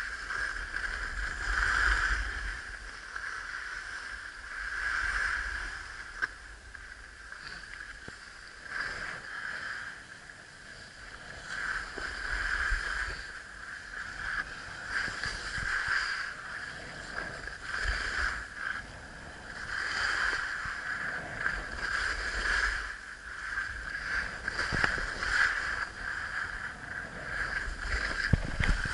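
Sliding down packed snow: the edges hiss and scrape, swelling and fading every couple of seconds with each turn. Wind rumbles on the microphone.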